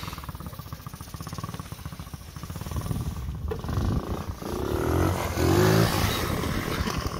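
A 110cc pit bike engine, a four-stroke single-cylinder, is driving a mobility scooter toward the listener. It revs higher under hard acceleration about five seconds in and is loudest as it passes close by, then fades.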